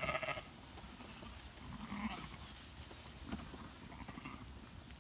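Sheep bleating three times in short, faint calls, about two seconds apart.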